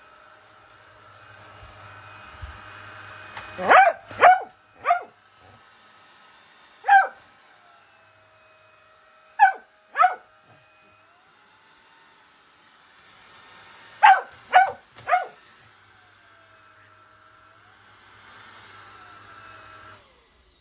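Border collie barking at a running vacuum cleaner: about nine sharp barks in short runs of one to three, over the vacuum's steady hum, whose pitch shifts now and then.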